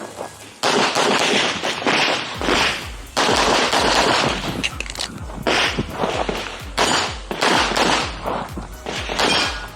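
Rapid strings of pistol shots, several in quick succession with short gaps between groups, from a competition pistol fired through an IPSC stage.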